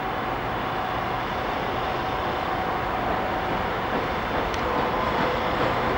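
DB class 215 diesel-hydraulic locomotive running past, a steady engine drone with a thin whine over it, growing slowly louder as it comes closer.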